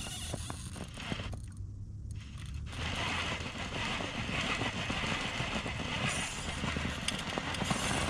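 Radio-controlled rock crawler straining up a granite boulder: its drivetrain runs under load while the tyres scrabble, crackle and scrape against the rock. There is a brief lull about a second and a half in, and it gets louder from about three seconds.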